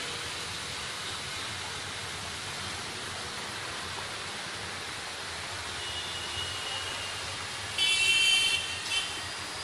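Steady outdoor street ambience with a low traffic hum. Near the end a vehicle horn honks loudly for just under a second, then gives one short second honk.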